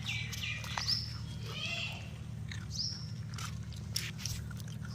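Puppies whining and squealing: several short, high-pitched cries that slide down in pitch, mixed with scattered clicks from feeding.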